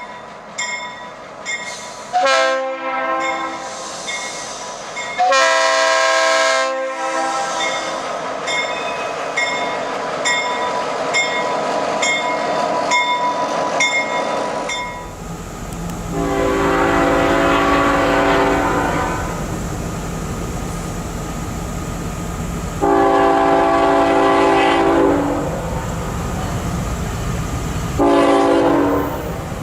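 Diesel locomotive's multi-chime air horn sounding a sequence of blasts, some short and some held for two to three seconds. In the first half a regular ding rings about twice a second under the horn. From about midway a passing train rumbles under the later blasts.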